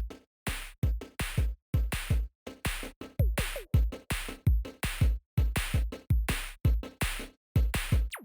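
Electronic background music: a steady, choppy drum-machine beat with deep bass kicks, short gaps between the hits.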